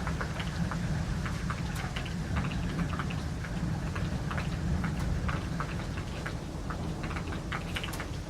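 Steady rain, with many individual drops striking close by in quick, irregular clicks, over a steady low rumble.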